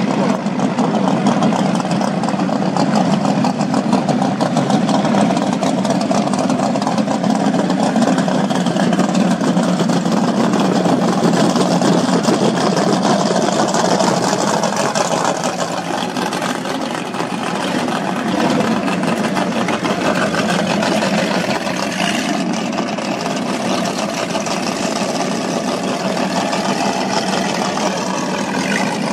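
Outboard engines of powerboats under way running steadily, with water rushing along their hulls; the noise eases slightly midway, then holds.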